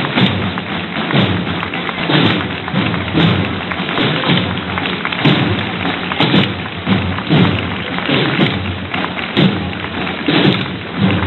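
Slow, steady drumbeat of a Holy Week procession, about one heavy beat a second, over a continuous noisy wash.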